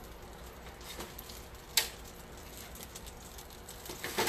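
Light clicks and taps as cereal-crusted slices of French toast are laid into an electric skillet of melted butter, with a faint steady hiss underneath. One sharp click comes about two seconds in, and a small cluster of taps near the end.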